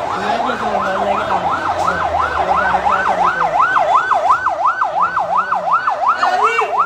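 Emergency vehicle siren on a fast yelp, its pitch sweeping up and down about three to four times a second and growing louder.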